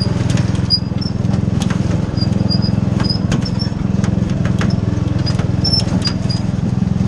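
Riding lawn mower engine running steadily while it tows a metal wagon over rough forest ground. The wagon rattles and knocks over bumps, with short high squeaks throughout.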